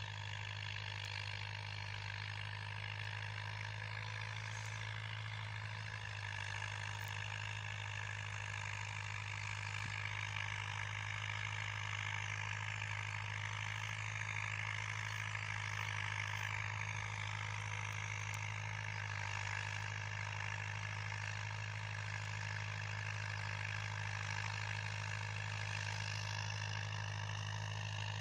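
Steyr 8073 tractor's diesel engine running steadily under load while pulling a 14-inch plow through the soil, a constant low drone that grows a little louder about a third of the way in as the tractor comes closer.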